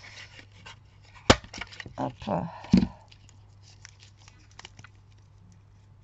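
Handheld circle paper punch snapping through a square of patterned paper with one sharp click about a second in, followed by a heavier thump a second and a half later.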